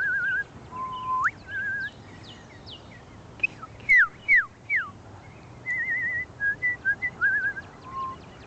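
A person whistling bird-like phrases: warbling trills, a held note that slides sharply up, and a few loud notes sliding down. Small wild birds chirp in short, high notes throughout.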